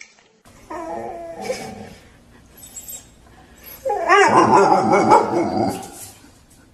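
A pet animal crying out twice: a shorter wavering cry about a second in, then a longer, louder one about four seconds in.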